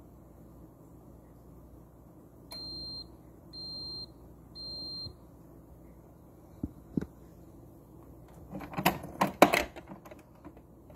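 Ninja CFN601 espresso machine beeping three times, a high tone each about half a second long, signalling that the brew has ended. A few seconds later come two clicks and a louder burst of plastic clattering as the machine's capsule lid is lifted by hand.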